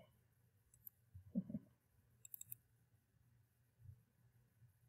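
Near silence with a few faint computer mouse clicks, and a short, low, muffled sound about a second and a half in.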